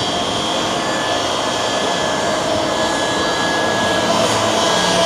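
Boeing 767-300ER's twin turbofan engines running at low thrust as the airliner taxis, a steady rushing whine with several high tones, growing a little louder near the end.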